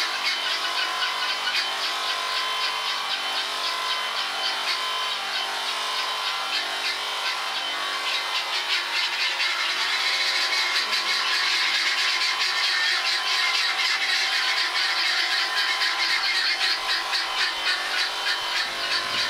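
Electric sheep shearing handpiece running steadily as it cuts through a sheep's fleece, a motor whine with a fast fluttering chatter from the comb and cutter that grows stronger about halfway through.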